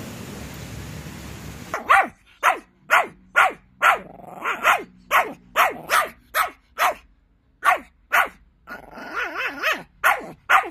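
Steady rain for the first couple of seconds, then a small long-haired dog barking sharply and repeatedly, about two barks a second, with a short break midway and softer whining between barks in places.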